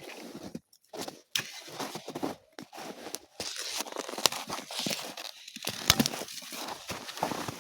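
Dry branches being snapped and broken by hand for campfire firewood: an irregular run of sharp cracks and crunches.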